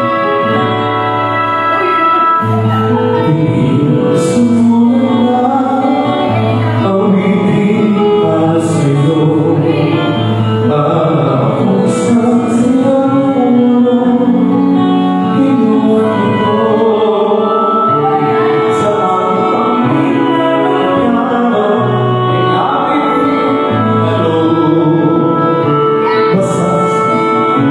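A slow ballad played on an electronic keyboard, with long held chords and a melody over them.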